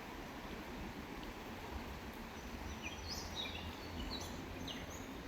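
A songbird singing a quick run of short, high sweeping notes, starting about two seconds in, over a steady low outdoor rumble.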